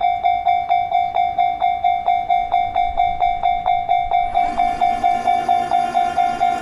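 Japanese level-crossing warning bell ringing its electronic "kan-kan" tone, about four strikes a second. From about four seconds in, the noise of a train running past joins it.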